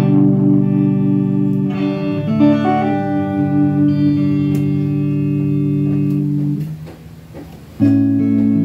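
J-Craft S1H HSS electric guitar played through an amplifier: sustained chords ringing out, changing about two seconds in. The chord is cut off about seven seconds in, and a fresh chord is struck a second later.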